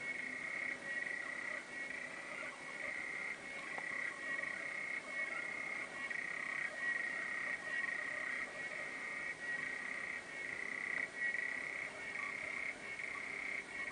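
Male African clawed frog (Xenopus laevis) giving its advertisement call underwater: a continuous clicking trill at a steady pitch, pulsing in short repeated phrases well under a second long.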